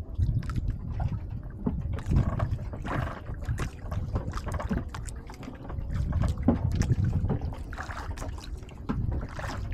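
Sea water lapping against the hull of a small outrigger boat, with wind rumbling on the microphone and scattered light clicks.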